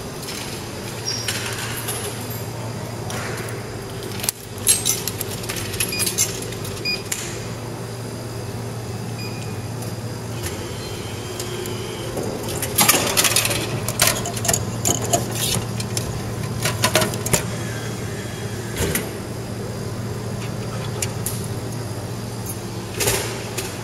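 Ice cream vending machine humming steadily, with two bouts of small metallic clinking and plastic clattering as it is paid and the ice cream is taken out through the flap door of its collection tray. There are a few more clicks near the end.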